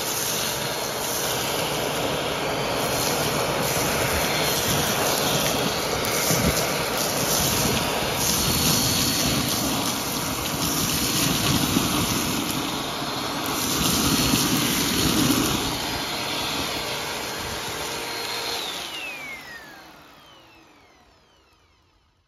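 Bissell upright vacuum cleaner running, its hose sucking crushed food out of a plastic tub, with small bits clicking up the hose. Near the end the motor is switched off and winds down with a falling whine, fading out.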